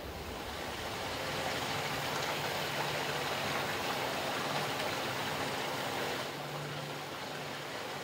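Steady rushing of flowing water, an even hiss-like noise with no clear pitch that eases a little about six seconds in, with a faint low hum beneath it.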